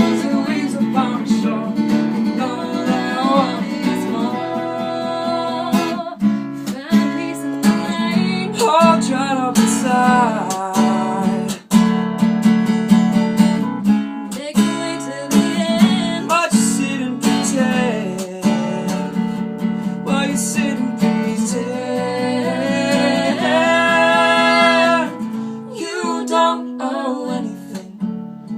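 Song performed live with strummed acoustic guitar and a sung vocal line, including a long held note near the end.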